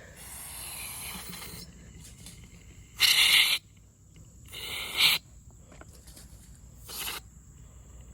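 Aerosol can of Gumout carburetor cleaner hissing in short bursts as it is sprayed into a small two-stroke edger's carburetor. A fainter hiss opens it, a long burst comes about three seconds in, a shorter one near five seconds and a brief one near seven. The carburetor is being flooded with cleaner to soak out a suspected clogged jet, because the engine won't take throttle.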